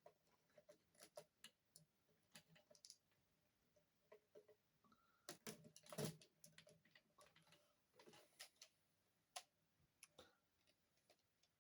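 Faint, irregular clicks and taps of hard plastic toy parts being handled: a robot figure's lobster-head piece being turned and fitted, with a slightly louder cluster of knocks about halfway through.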